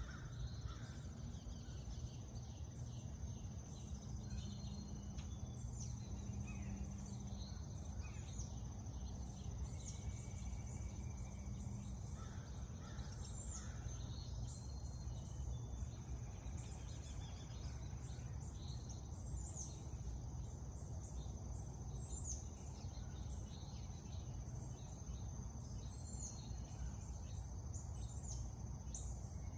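Songbirds chirping in many short, high, quick calls scattered throughout, over a steady thin high-pitched tone and a low background rumble.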